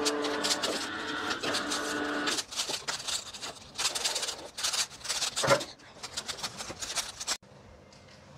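Vertical slow juicer's motor running with a steady hum and some clicking, stopping about two and a half seconds in. Then irregular clicks, knocks and clatter as a plastic jug of green juice is handled and poured, until it goes quiet near the end.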